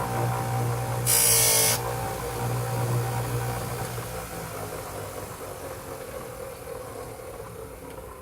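Grinder with a buffing wheel running with a steady motor hum, with one brief hiss of aluminium pressed against the wheel about a second in. After that it mostly hums, growing gradually quieter.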